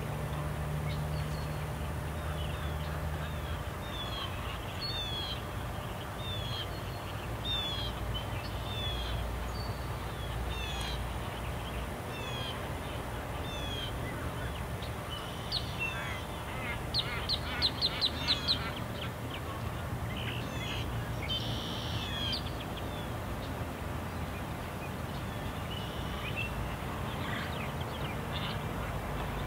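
Wild birds calling: a string of short, high, falling chirps about once a second, then a quick, louder series of notes a little past halfway, with scattered calls after, over a steady low background rumble.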